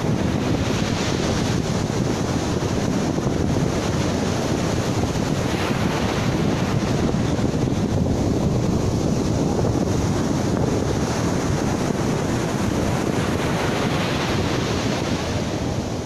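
Ocean surf breaking on a beach, a steady rushing noise, with strong wind buffeting the microphone.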